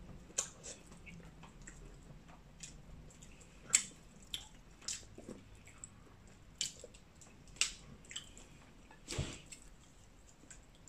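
Cooked crab being picked apart by hand: scattered sharp clicks and cracks of shell with wet squishing, the loudest about four seconds in and a duller thump about nine seconds in.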